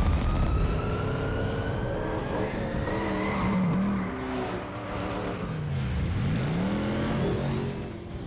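Batmobile engine firing with a heavy boom at the start, then revving hard. A whine climbs over the first few seconds, and the engine note swoops up and down as it is revved, easing off a little near the end.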